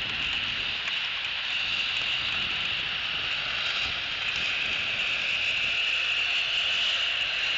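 Steady rain falling, an even hiss with no distinct drops or knocks standing out.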